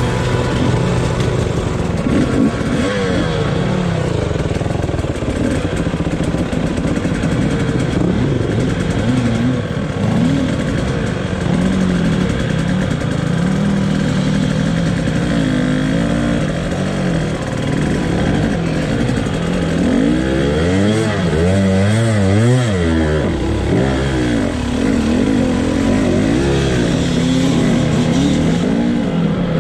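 Motor vehicle engines running and revving, their pitch rising and falling again and again, with a bout of fast revving about two-thirds of the way in.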